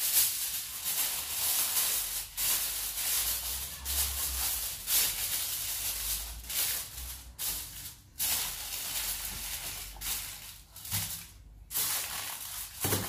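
Aluminium foil crinkling and rustling as hands spread and press a sheet into a baking tray, on and off with a few brief pauses.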